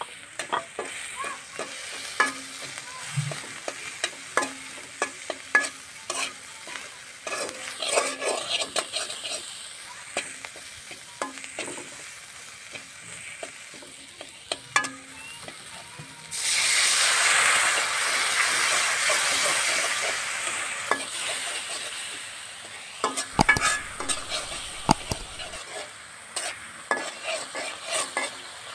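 A metal spatula scraping and tapping against a large metal karahi as a spice-and-onion paste fries in oil with a low sizzle. About halfway through, a sudden loud sizzle flares up as water hits the hot paste, fading over several seconds before the scraping resumes.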